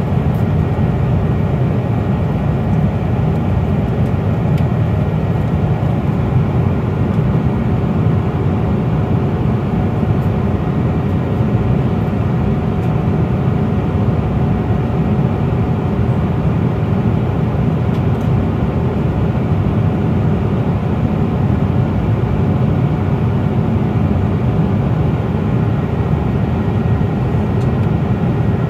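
Steady cabin noise inside a Boeing 777-200 in flight: a constant low roar of engines and airflow, with faint steady tones above it.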